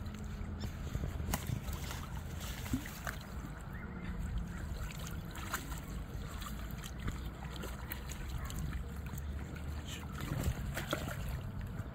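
Water sloshing and splashing in short irregular bursts as a carp is let out of a wet retention sling into the lake, over a steady low wind rumble on the microphone.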